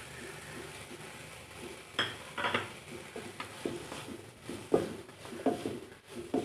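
Wooden spatula stirring and scraping a crumbled paneer mixture around a nonstick frying pan, with irregular scrapes and knocks from about two seconds in, over a faint sizzle of frying.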